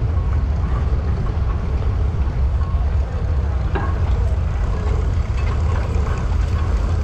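Case steam traction engine running as it drives slowly toward the listener, with a steady low rumble.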